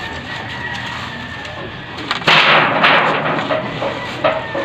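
A moringa trunk being wrenched by hand to uproot it: rough scraping and rustling, with one loud burst of noise about two seconds in that lasts under a second.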